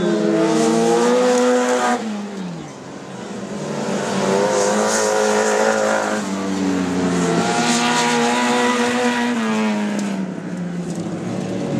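Off-road race car engines revving hard on a dirt track. The pitch climbs, drops away sharply about two seconds in, then climbs again as another car accelerates, easing off near the end.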